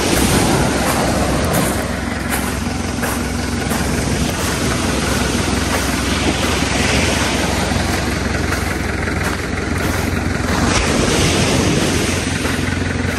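Diesel engine of a front-loader tractor running steadily, mixed with the wash of surf on the shore.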